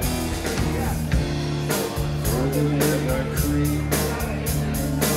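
Live rock band playing: electric guitar and electric bass over a drum kit, with a woman singing at the microphone.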